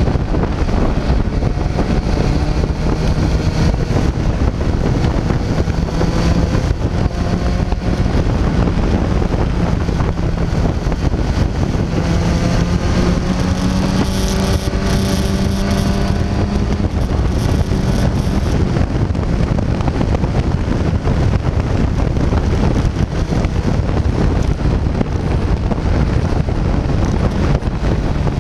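Sport motorcycle engine running at road speed, heard through heavy wind noise on the microphone; the engine note climbs in pitch about halfway through as the bike accelerates.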